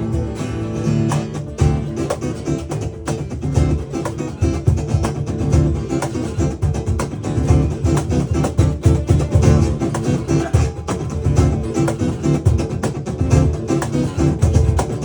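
Live band playing an instrumental passage of a song: strummed guitar over a steady drum beat, with no singing.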